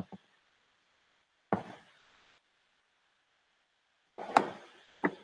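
A few short knocks and bumps of handling: a quick double knock at the start, another about a second and a half in, a longer cluster around four seconds and one more near the end, with faint hiss between.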